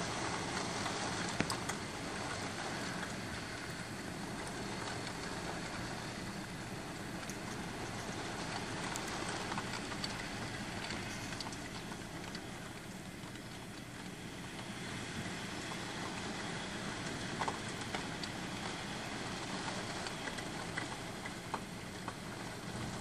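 Heavy rain falling steadily on a street and pavement, an even hiss with scattered sharper drip ticks and a low steady hum underneath.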